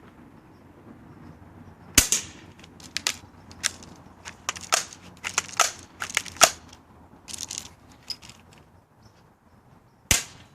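Two sharp BB gun shots, one about two seconds in and one near the end, with a run of quick clicks and rattles from handling the gun in between.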